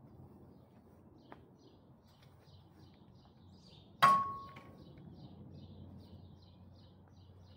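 A single sharp metallic clang about four seconds in, ringing briefly, as a long-handled garden tool strikes metal. A small bird chirps repeatedly in the background.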